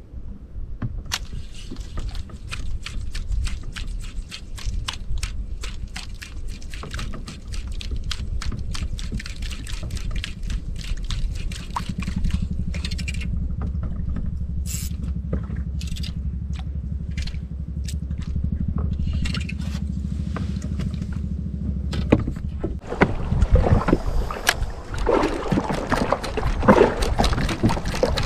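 Small spinning reel ticking rapidly and irregularly as the micro jig is dropped and worked on an ultralight rod, over a low rumble. From about two-thirds of the way through, louder rushing of wind and water against the boat takes over.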